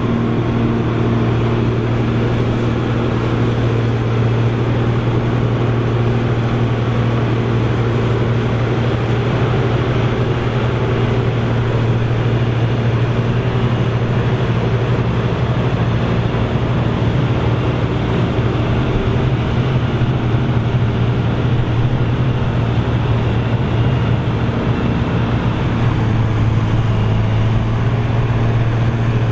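Krone BigX 700 self-propelled forage harvester working in maize: a steady, loud, deep engine drone under heavy load mixed with the rushing noise of the chopper and crop flow.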